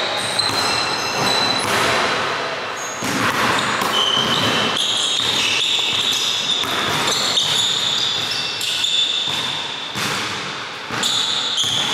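A basketball bouncing on a hardwood gym floor in repeated dribbles, with sneakers squeaking sharply as the players cut and defend, echoing in the large hall.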